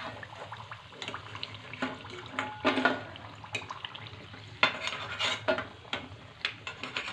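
Large metal slotted spoon scraping and clinking irregularly against a steel kadhai as deep-fried fritters are lifted out of hot oil, with the oil sizzling faintly.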